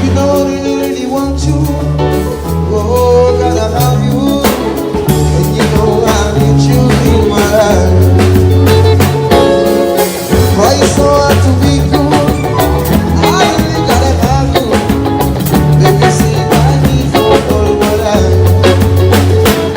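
Band music with singing over a drum kit and a prominent bass line.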